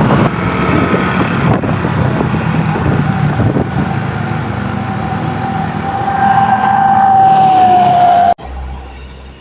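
A tour bus going past close by with its engine running loud, the last notes of its telolet musical horn breaking off just after the start. Later a single held horn tone sounds, dropping slightly in pitch near its end. It cuts off suddenly about eight seconds in.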